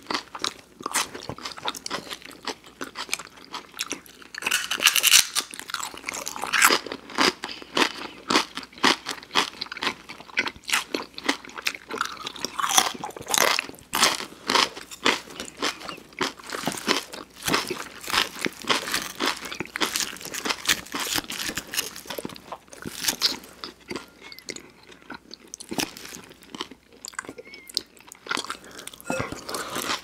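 Two people chewing crisp lettuce salad close to the microphone: a dense, irregular run of crunching bites and wet mouth sounds.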